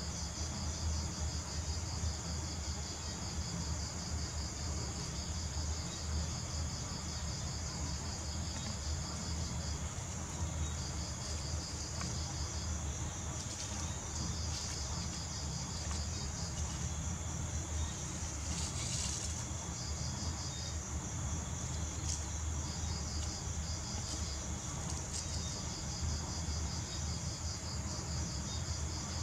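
High-pitched insect trilling in evenly pulsed runs that break off and resume several times, over a low steady hum.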